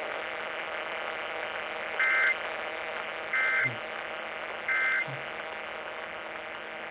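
Emergency Alert System end-of-message tones: three short warbling data bursts, each about a third of a second long and about 1.3 s apart, that close out the alert. Steady radio static and hum run underneath.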